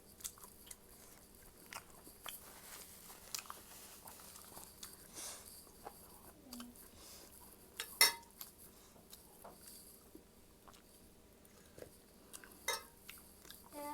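Eating sounds close to the microphone: chewing and biting, with scattered small clicks of cutlery against a dish, a sharper click about eight seconds in and another near the end.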